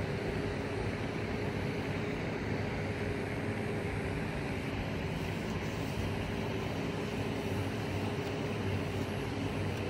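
A steady machine drone with a constant low hum, unchanging throughout.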